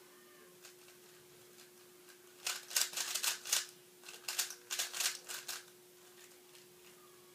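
3x3 speedcube, a GAN Air, being turned quickly by hand: two short runs of plastic layer-turn clacks, the first about two and a half seconds in and the second about a second later.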